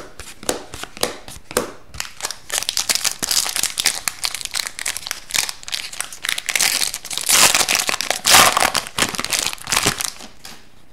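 A foil hockey card pack is torn open by hand, and the wrapper crinkles and crackles for several seconds, loudest near the end. Before that come a few sharp clicks of cards being handled.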